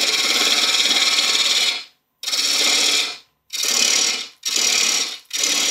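Hurricane carbide roughing tool cutting side grain on the outside of a bowl blank spinning on a wood lathe, a scraping hiss. One cut lasts nearly two seconds, then come four shorter cuts of about a second each with brief breaks between.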